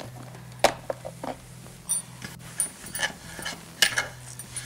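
Chopped vegetables and kitchenware being handled on a counter as they are put into a pot of water for stock: a string of irregular sharp knocks and clicks, the loudest about half a second in and again near four seconds, over a low steady hum.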